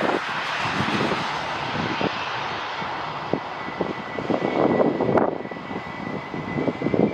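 Jet airliner engines: a broad roar that slowly fades, with a steady high engine whine holding from about three seconds in. Gusts of strong wind buffet the microphone in repeated low thuds.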